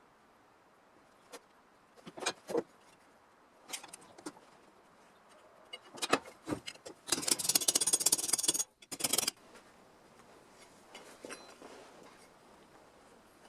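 Workshop handling noises on metal: scattered clinks and knocks, then a fast scraping rattle for about a second and a half near the middle, a shorter burst, and lighter scraping after.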